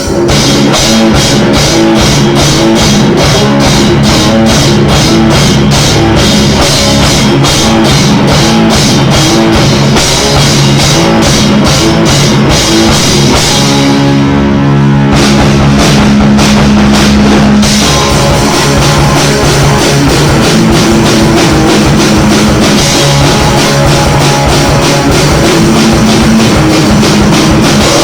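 A rock band rehearsing at full volume, with drum kit and guitar. About halfway through, the drums stop for a few seconds while held guitar notes ring on, then the whole band comes back in.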